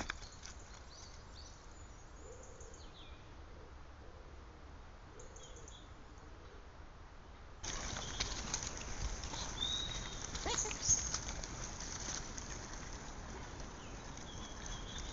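Woodland ambience through a trail camera's microphone: a steady hiss with scattered faint bird chirps. About halfway it cuts sharply to a louder, noisier recording with more bird calls and a few clicks.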